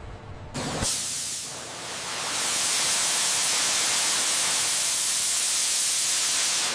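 A CNC cutting head cutting through thick steel plate, giving a loud, steady hiss. The hiss starts about half a second in and grows louder at about two seconds, then holds even.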